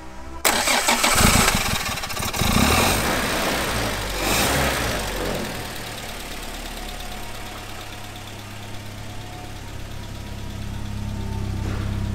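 1967 Triumph TR4's four-cylinder engine on a cold start: it fires about half a second in and runs loud and uneven, with three rises in revs over the next few seconds, then settles to a steady idle.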